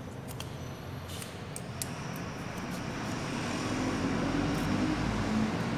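A vehicle passing, its rumble swelling over a few seconds and loudest near the end. Light clicks of copper magnet wire being handled come in the first two seconds.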